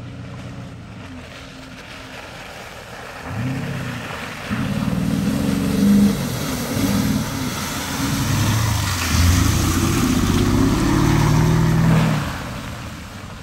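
Porsche Cayenne S's 4.5-litre V8 revving up and down as it ploughs through deep mud and water ruts, with the hiss and slap of spray and flung mud. It gets louder as the car comes close, is loudest in the last few seconds, then fades near the end.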